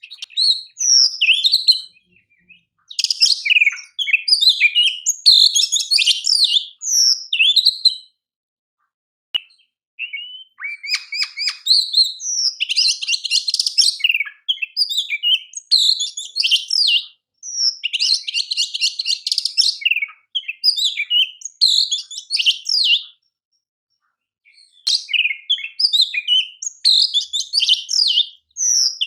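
Oriental magpie-robin (kacer) singing a loud, varied song of high whistles and chattering notes. It comes in runs of a few seconds separated by brief pauses, with fast rattling trills in the middle part.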